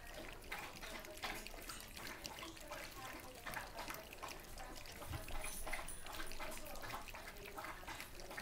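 A litter of puppies lapping and slurping food from stainless steel feeding bowls: a steady patter of many quick, irregular wet licks and smacks.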